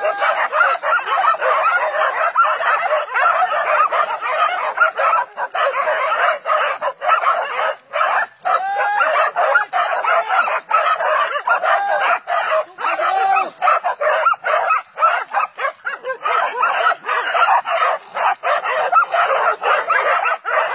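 A pack of hunting dogs barking and yelping in a constant, overlapping din, baying a cornered wild boar.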